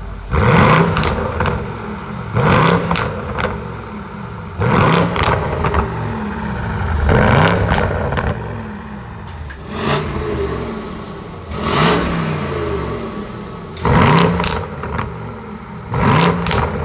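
BMW M550i's twin-turbo V8 with a Stage 3 aftermarket exhaust, its valve open, blipped hard about eight times at roughly two-second intervals. Each rev rises sharply and then falls back to idle.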